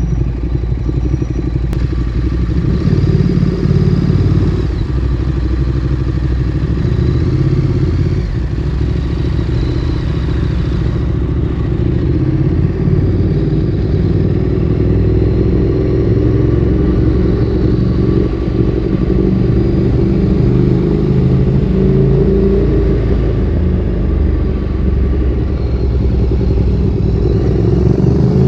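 Ducati Streetfighter 848's L-twin engine through a Termignoni exhaust, running at low revs with a lumpy, uneven beat. Near the end its pitch rises as it accelerates.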